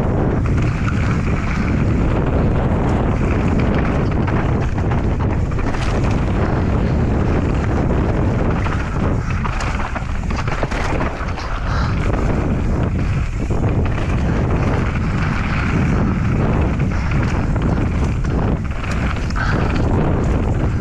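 Wind buffeting the camera microphone as an enduro mountain bike is ridden fast down a dirt trail, with a steady rush of tyre and wind noise broken by many short knocks and rattles from the bike over rough ground.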